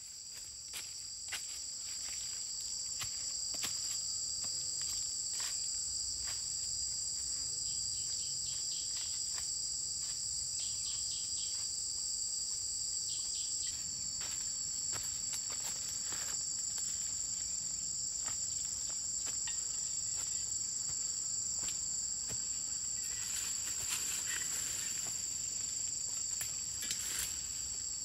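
Insects droning steadily in forest undergrowth: a constant high-pitched chorus on two steady pitches. It fades in over the first couple of seconds, with scattered light clicks and leaf rustles.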